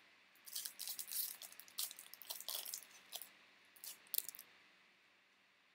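Crackly rustling and crinkling from a pack of Topps baseball cards and its wrapper being handled. It comes in irregular bursts for about four seconds and then stops.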